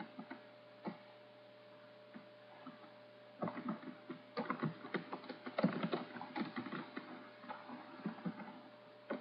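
Computer keyboard typing: a few scattered key clicks at first, then a quick run of keystrokes from about three and a half seconds in that thins out near the end, over a faint steady hum.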